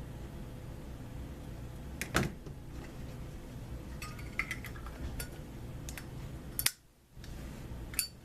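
Metal clicks and clinks from a Zippo-style lighter case with a butane soft-flame insert being handled: a sharp click about two seconds in, a few lighter clicks after, and another sharp click near the end.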